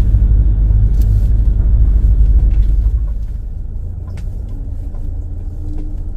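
Low rumble inside a car driving off a car ferry's deck and down onto the concrete landing ramp. It is loudest for the first three seconds, then eases to a steadier, lower run. A faint steady hum joins in near the end.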